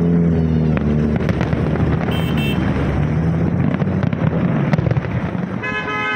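Heavy road traffic: car engines and tyres running in a dense wash of noise. A short high beep sounds about two seconds in, and a car horn blares near the end.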